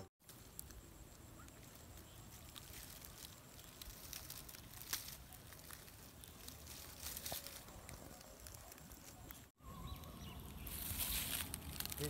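Faint outdoor ambience with scattered light ticks and rustles, and a brief louder hissing rustle near the end.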